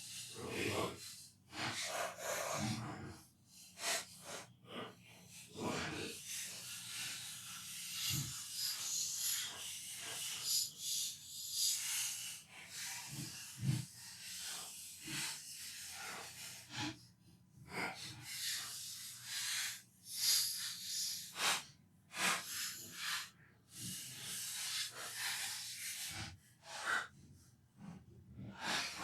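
Irregular short scratchy, hissing strokes with a few light knocks: hand cleaning of dust from PlayStation 4 parts.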